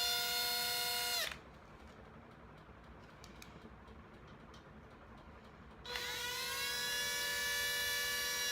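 Panasonic EY7441 14.4 V cordless drill-driver running with a makeup brush fitted in its chuck. The motor whine cuts off about a second in, then starts again about six seconds in, rising in pitch as it spins up, and runs on steadily.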